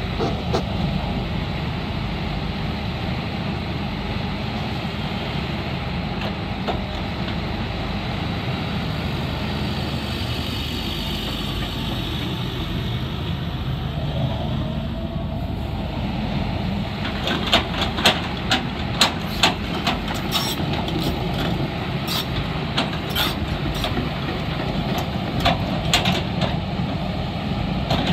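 JCB JS220 tracked excavator's diesel engine running steadily as the boom and bucket are worked hydraulically. Past the middle comes a run of sharp knocks, with a few more near the end.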